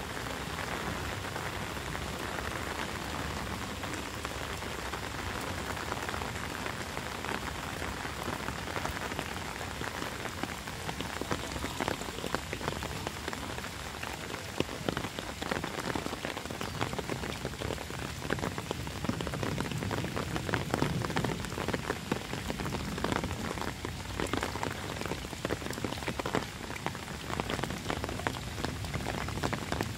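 Steady heavy rain falling on wet pavement, an even hiss full of small drop splashes. The sharper drop hits grow more frequent and louder from about ten seconds in.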